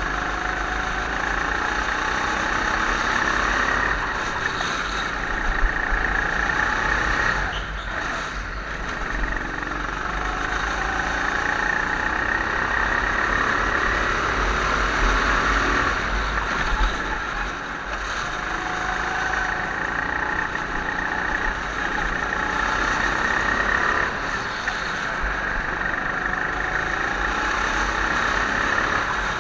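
Indoor go-kart's engine running flat out on a lap, heard from on board, with a deep rumble under it. It eases off briefly three times and picks up again.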